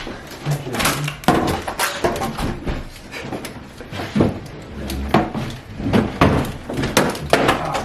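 Irregular knocks, taps and crinkles of plastic water bottles being handled and added as weight.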